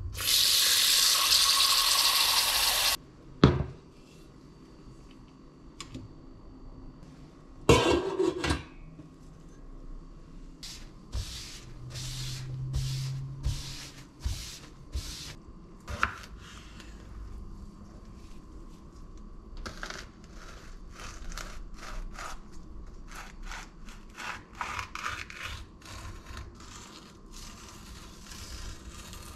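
Tap water running hard into a stainless steel pot for about three seconds, then the pot knocking down twice. After that, a run of short, even rubbing strokes on a bamboo cutting board, followed by many quick knife strokes on the board as green peppers are cut.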